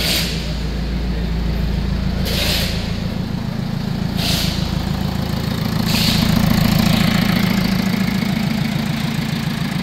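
Hyundai Santa Fe 2.2-litre four-cylinder turbo-diesel engine idling steadily, with four brief hissing noises over it in the first six seconds or so.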